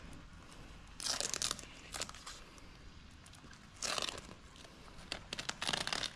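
Tape being peeled off exterior outlet covers and crumpled: short bursts of crackling and tearing, about a second in, around four seconds, and again near the end.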